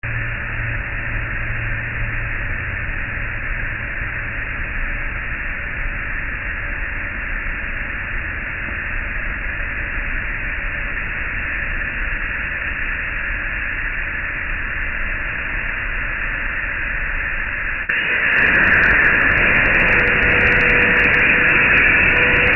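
A steady hiss, then about 18 seconds in the MicroStep ProfileCut CNC plasma torch's arc strikes. The sound jumps suddenly to a louder, harsher hiss with crackling as the torch cuts into the HEA 180 steel beam.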